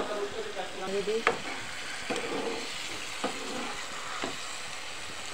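Metal spatula stirring chicken pieces through a sizzling masala gravy in a pan, with a steady sizzle under it. After the first second the spatula knocks against the pan about once a second.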